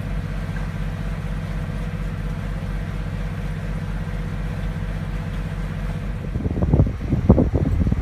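A boat's engine running with a steady low hum, heard from inside the cabin. About six seconds in this gives way to wind buffeting the microphone in irregular gusts.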